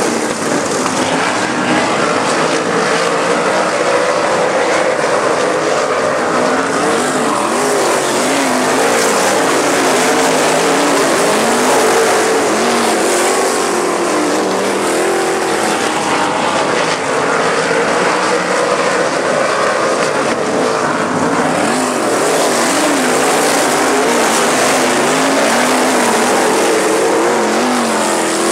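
A field of winged dirt-track sprint cars racing, several engines at once, loud and continuous. Their pitches rise and fall as the cars lift and get back on the throttle through the turns.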